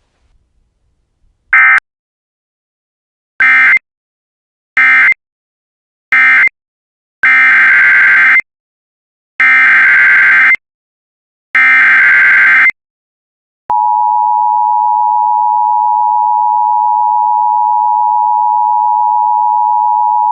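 Emergency Alert System digital data bursts: three short bursts of warbling tones, the end-of-message code, then three longer bursts, the SAME header for the next alert. About two-thirds of the way in, a loud steady two-tone attention signal starts and holds.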